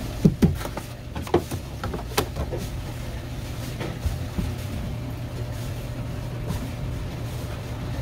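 Knife work on a cutting board while filleting a red seabream: sharp taps and knocks, several close together in the first couple of seconds, then a few scattered ones, over a steady low hum.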